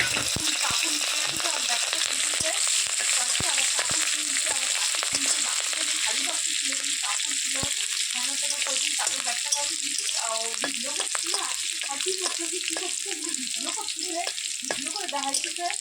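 Food frying in hot mustard oil in a kadai: a steady sizzle, with occasional sharp knocks of the spatula against the pan as it is stirred.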